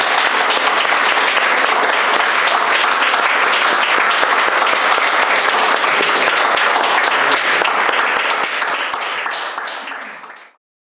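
Audience applauding in a small room, a dense patter of many hands clapping that dies away near the end and then cuts off.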